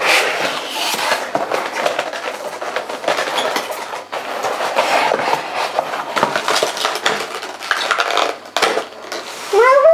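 A cardboard toy box and its plastic packaging tray being handled and slid apart. There is continuous rustling with many small clattering knocks of plastic pony figures and accessories.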